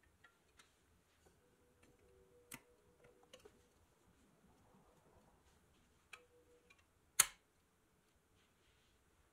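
Light clicks and taps of a metal toy biplane's wing being handled and fitted over the tabs of its metal body, with one sharper metallic click about seven seconds in.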